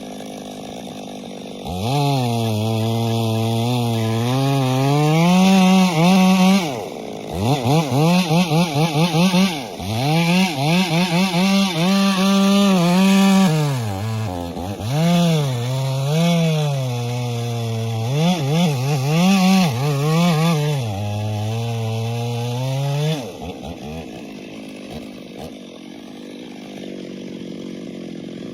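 Two-stroke chainsaw engine revving hard, its pitch rising and falling repeatedly with the throttle, probably while cutting wood. It idles briefly at the start and drops back to idle near the end.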